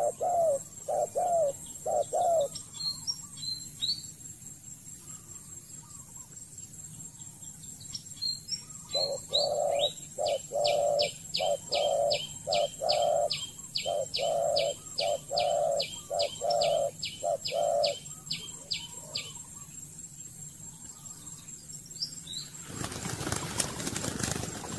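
Spotted doves cooing: short runs of low coo notes at the start and again from about nine to eighteen seconds in, with a fast, even series of high ticking calls alongside and a few short chirps. Near the end a burst of rustling, flapping noise.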